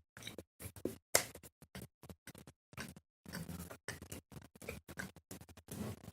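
Scattered small clicks and crackles from handling food and its packaging close to the microphone, coming irregularly several times a second.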